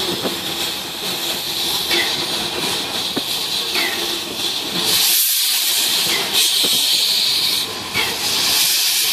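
Two steam locomotives, a small tank engine beside a class 52, hissing steam as they move slowly side by side. About five seconds in, the hiss of escaping steam grows louder and harsher.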